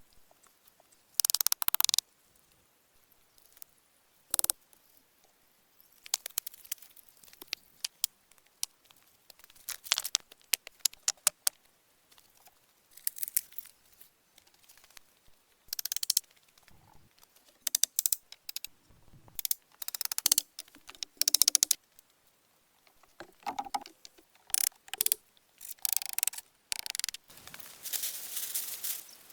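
Short bursts of rustling and crackling with sharp clicks and snaps, separated by quiet gaps, with a longer stretch of rustling near the end.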